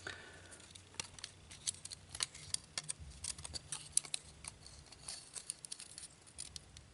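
Faint, irregular clicks and light rustling of small plastic model-kit parts and wiring being handled and pressed together.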